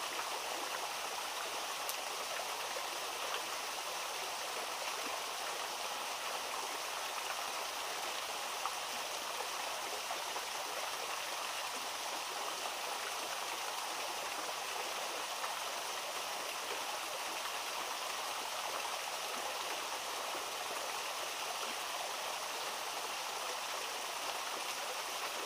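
Small forest stream flowing: a steady, unbroken rush of water.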